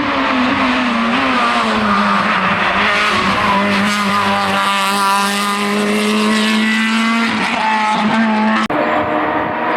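Hill-climb race car engine running at high revs as the car climbs past, its pitch dipping briefly about a second in and then held high. Near the end the sound cuts off abruptly and another engine takes over.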